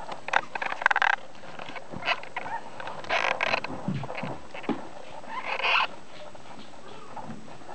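Two-week-old whippet puppies giving small squeaks and grunts in a few short bursts, about four times.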